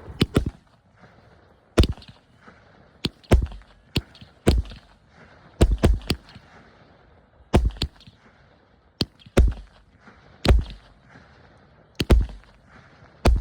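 True North Fireworks Maple Madness consumer cake (22 mm tubes, up to 12 shots) firing: a string of sharp shots about every second. Most come as close pairs, a launch thump quickly followed by the pop of the shell breaking.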